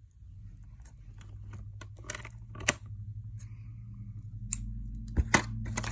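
Scissors snipping through a doll box's plastic packaging and ties: a few sharp clicks with small rustles between, the loudest snips about two-thirds of the way in and twice near the end, over a steady low hum.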